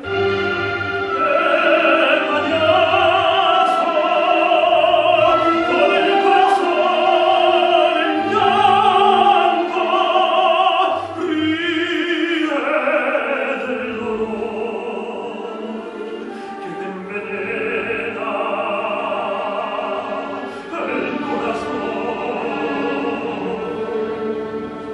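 Operatic singing in a full classical voice with wavering vibrato on long held notes, over a musical accompaniment.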